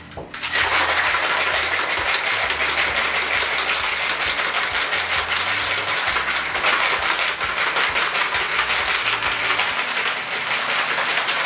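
A metal cocktail shaker being shaken hard, with ice rattling and clattering inside the tin in a fast, continuous rattle. It starts about half a second in.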